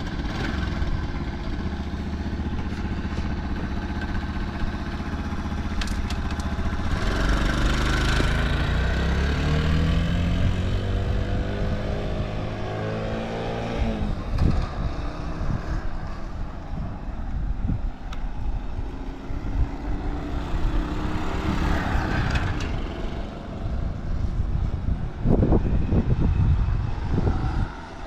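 Honda Motra's 49 cc four-stroke single-cylinder engine on a short ride. It runs steadily at first, then revs up with a rising pitch for several seconds. About halfway through the revs drop off, and it runs on at varying speed. The engine is quite quiet, with no abnormal noises.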